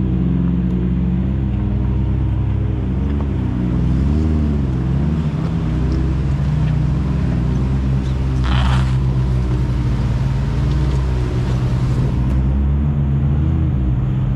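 Can-Am Maverick side-by-side engine running and revving up and down as it crawls over rocks, with a brief rush of noise about halfway through.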